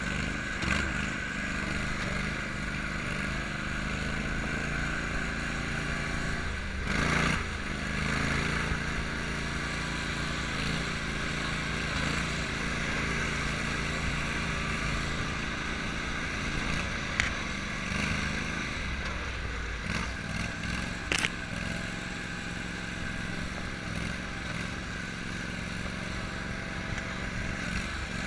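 Small off-road motorbike running steadily, its note wavering slightly, with a brief louder swell about seven seconds in.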